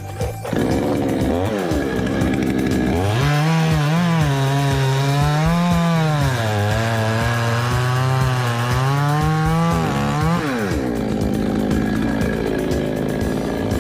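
Chainsaw revved briefly, then run at high throttle for about seven seconds, its pitch dipping and rising as if under load. It then drops back to a lower speed near the end.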